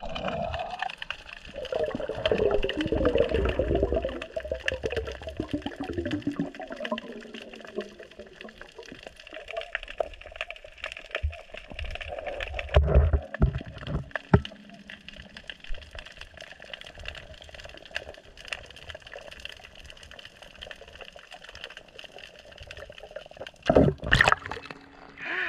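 Underwater sound from a submerged camera: muffled water gurgling, with scattered clicks and knocks, and a louder short burst near the end.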